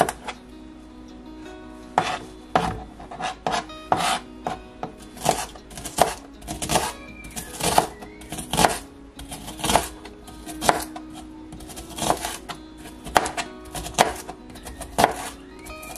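Knife chopping on a cutting board: irregular strokes, about one or two a second, starting about two seconds in.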